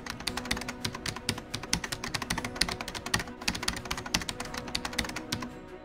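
Keyboard typing sound effect: rapid, irregular key clicks that accompany on-screen text being typed out, over a faint steady hum.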